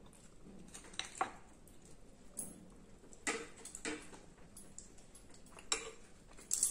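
Cutlery clinking against plates at an eating table, in about seven short, irregular clicks, among quiet eating sounds.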